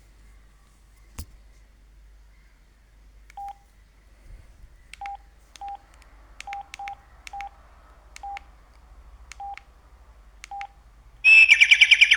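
Samsung SGH-E330N keypad beeps: nine short beeps at uneven spacing as buttons are pressed through the phone's menus. Near the end a much louder polyphonic ringtone starts playing through the phone's speaker.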